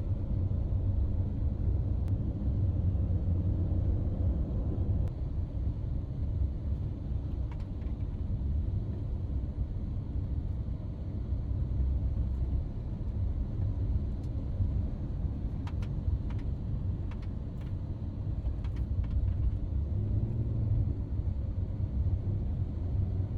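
Steady low rumble of road and engine noise inside a moving car, with a few faint clicks about two-thirds of the way through.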